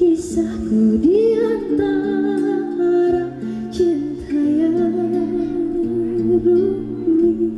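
A woman singing into a microphone over instrumental backing, her voice sliding and bending through ornamented runs, with a swoop up in pitch about a second in.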